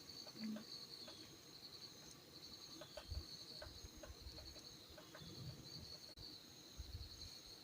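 Crickets chirping in a faint, steady, high pulsing trill, with a few scattered faint clicks and low thumps.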